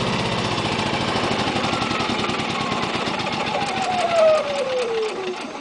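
Yamaha generator's engine winding down after being shut off by its remote: the running note and a whine fall steadily in pitch over the last few seconds until the engine stops near the end.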